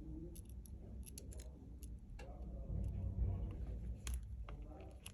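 Irregular light clicks and ticks of small repair tools and phone parts being handled, over a low rumble of handling noise.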